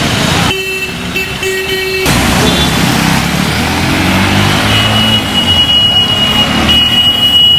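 Motor traffic on a rain-wet street: engines of auto-rickshaws and other vehicles running, with tyres on wet road. A steady high-pitched tone sounds through the last few seconds.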